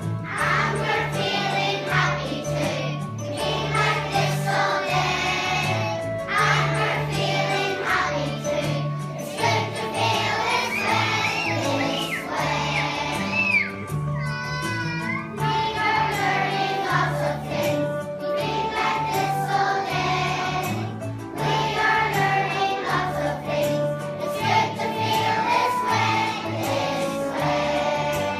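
A group of children singing a song together over instrumental accompaniment with a steady, repeating bass line.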